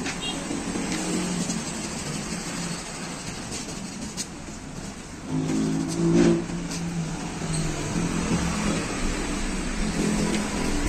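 A motor vehicle engine running in the background, a low hum that grows louder about five seconds in, with a few light clicks.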